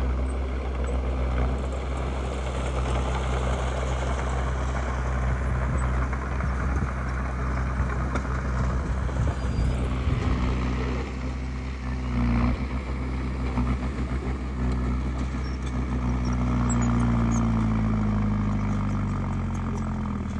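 Diesel engine of heavy earthmoving machinery running steadily under load. Its pitch sags slightly in the last few seconds.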